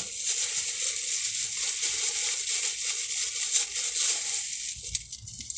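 Thin clear plastic bag crinkling and rustling as it is pulled and worked open by hand, close to the microphone. The crinkling dies down near the end.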